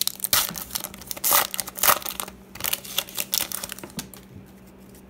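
Foil wrapper of an Upper Deck hockey card pack being torn open and crinkled by hand: dense crackling for about two seconds, then scattered crinkles that die away.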